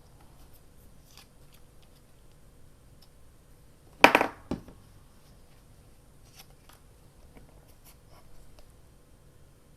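Small handling sounds of paper and craft materials on a desk: scattered faint rustles and clicks, with one loud, short crackling snip about four seconds in followed by a sharp click.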